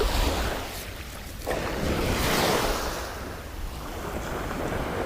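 Rushing noise of wind and surf with wind buffeting the microphone, swelling louder about one and a half seconds in and then easing.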